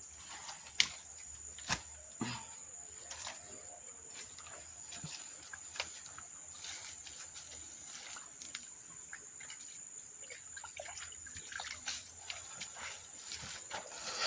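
Steady high-pitched chorus of insects, with a few sharp clicks or knocks in the first couple of seconds.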